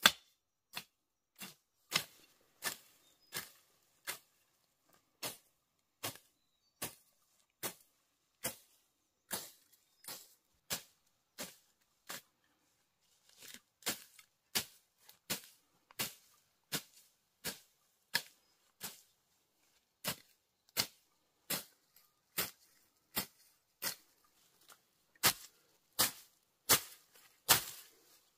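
A hand hoe chopping into grass-covered soil, as ground is cleared for tilling. Short, sharp strikes come about one every 0.7 seconds, with a pause of a second or so midway, and the strikes grow louder near the end.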